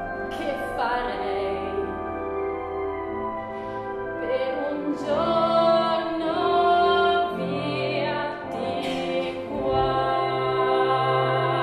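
Solo female voice singing a slow musical-theatre ballad in Italian over a sustained accompaniment. She sings several long held phrases, with the notes wavering in vibrato late on.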